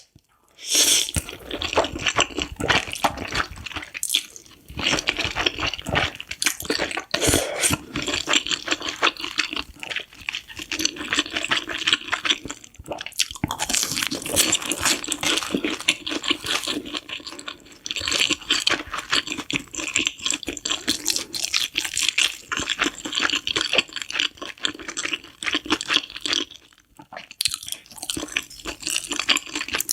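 Close-miked eating of noodles: continuous wet slurping and chewing, broken by a few short pauses.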